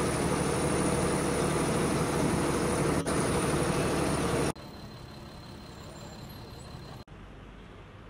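Loud, steady road-traffic and heavy-vehicle noise. It cuts off abruptly about halfway through to a much quieter background hum.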